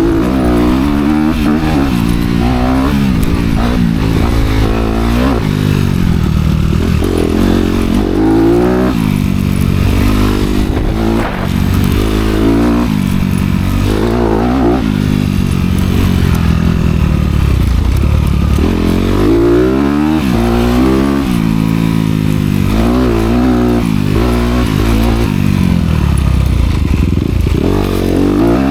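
Honda CRF250R dirt bike's single-cylinder four-stroke engine, with its dual exhaust, being ridden hard. The revs climb and drop every second or two as the rider works the throttle and gears.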